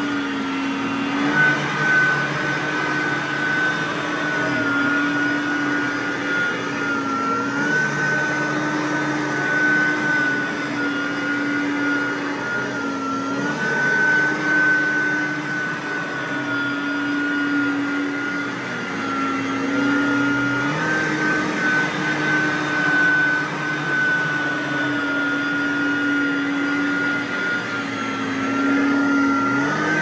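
Riccar R10S SupraLite upright vacuum cleaner running on carpet: a steady motor whine over a lower hum. The pitch shifts slightly every few seconds as the head is pushed back and forth.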